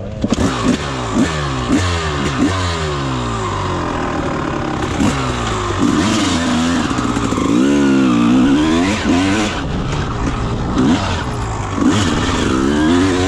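Off-road motorcycle engines running and revved in quick blips, then one bike pulls away, its engine rising and falling in pitch as it accelerates up the track.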